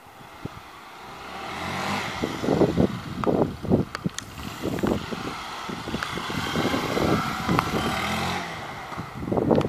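A 2012 Honda CBF125's single-cylinder four-stroke engine running as the bike rides up, passes close by and pulls away, loudest about three to four seconds in. Gusts of wind hit the microphone.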